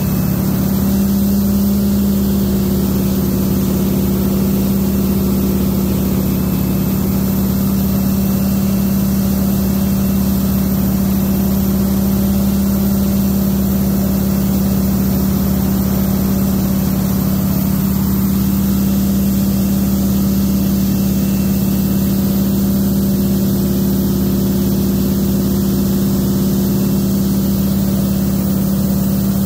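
North American T-6 Texan's radial engine and propeller in steady cruise flight, heard from on board: an even drone with a strong low hum, over rushing airflow.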